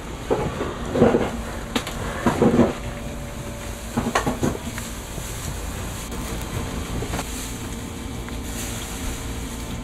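A steady low mechanical hum with a few knocks and rustles about one, two and a half, and four seconds in.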